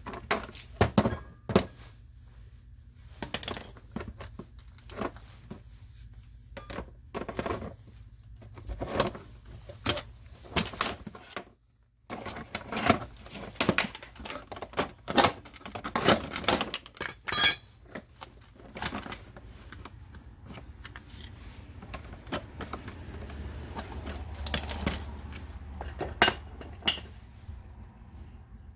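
Irregular metallic clicks, clanks and knocks of a Sentry fireproof safe being handled and worked on after being forced open, with a short break about twelve seconds in.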